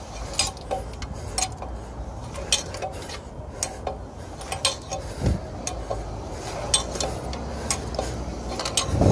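Light metallic clinks and knocks at irregular intervals, from metal gear being handled, over a low steady rumble.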